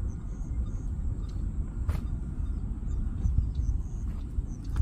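Wind buffeting the microphone, making a steady low rumble, with one sharp click about two seconds in.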